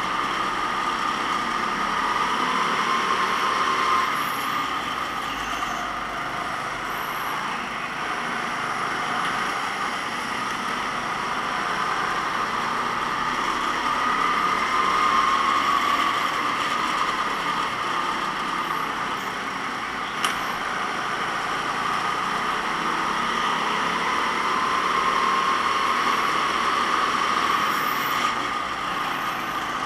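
Racing go-kart engine running continuously, its pitch climbing and dropping again and again as the revs rise and fall. One sharp click about two-thirds of the way through.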